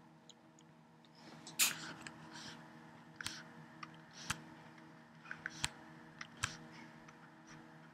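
Pen stylus tapping and scratching on a Wacom Bamboo graphics tablet as lines are drawn: about half a dozen sharp separate clicks with short stretches of faint scraping, over a faint steady hum.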